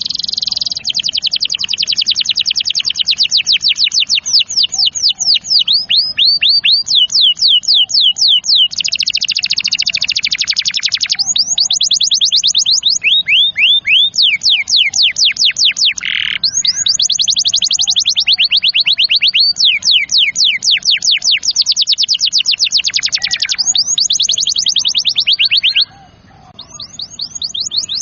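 Domestic canary in full song: long rolling trills of fast repeated notes, switching to a new trill every second or two, with a short break near the end.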